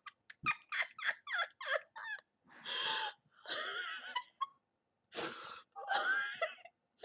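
A woman laughing hard: a quick run of short giggling pulses, then longer wheezing, breathy laughs with short pauses between.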